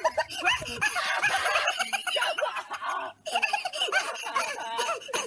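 People laughing and giggling. The laughter breaks off briefly about three seconds in.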